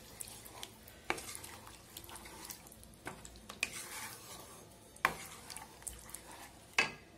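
Wooden spatula stirring a thin, watery cauliflower and potato curry in a pan, the liquid sloshing softly, with four sharp knocks of the spatula against the pan.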